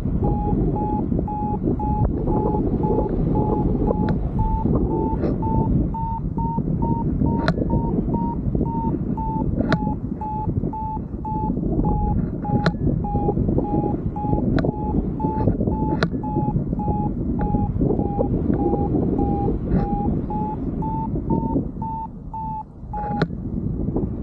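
Paragliding variometer beeping in a regular run of short tones, a few a second, its pitch creeping up and then back down as the climb strengthens and weakens, signalling that the glider is climbing in lift; the beeping stops shortly before the end. Wind rushes over the microphone underneath, with a few sharp clicks.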